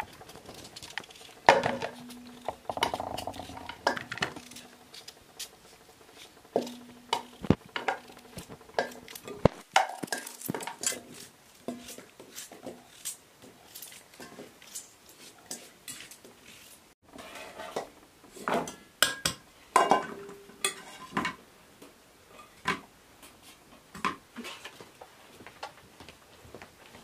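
Hand peeling and cutting of potatoes with small knives over aluminium bowls: irregular clicks, scrapes and knocks of knife on potato, with pieces dropping into the metal bowls, which clatter and ring briefly.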